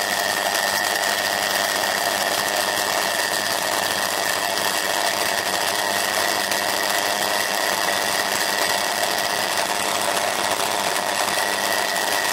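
Homemade magnetic argon ion drive running: the high-voltage arc discharge between its concentric copper tubes, spun by the ring of magnets, gives a steady electrical buzz. The buzz has a high whine in it and stays even throughout.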